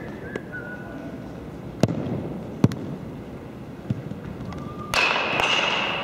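Rubber-soled sneakers squeaking on a hardwood gym floor, with sharp smacks of a baseball on the floor and into a leather glove during an infield double-play feed drill. The loudest smack comes between two and three seconds in, and near the end a longer shoe squeal comes with scuffing footwork.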